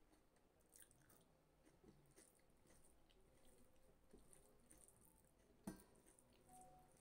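Faint chewing of rice and dal, and the soft squelch of fingers mixing rice and dal on a plate, with one sharper click a little before the end.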